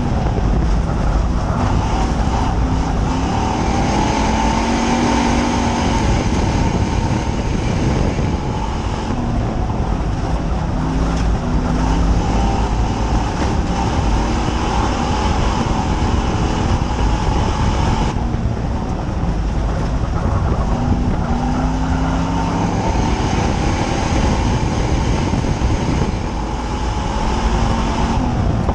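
Dirt-track race car's engine heard from inside the cockpit at racing speed, a loud steady run over a heavy low rumble, its pitch rising and falling every few seconds through the laps.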